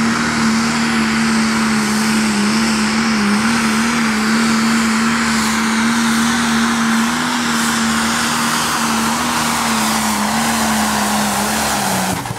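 Limited Super Stock pulling tractor's diesel engine running flat out at a steady, high pitch under the load of the pulling sled, then falling away sharply near the end as the pull finishes.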